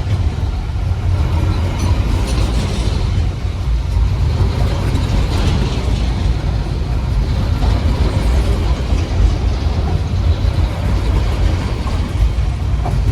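Freight train working up a grade: a heavy, steady low diesel rumble mixed with rolling rail noise, with no letup.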